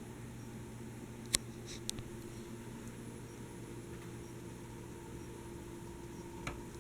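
Hunter Passport ceiling fan running with a steady low hum, broken by a few sharp clicks about a second and a half in and another near the end.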